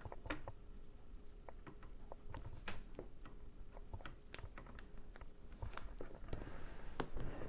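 Scattered light clicks and taps of hard plastic as a small action figure is handled and fitted into place in a toy.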